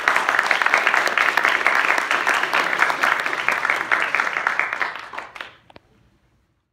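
Audience applauding: dense clapping that dies away after about five and a half seconds, with a single sharp click just after it ends.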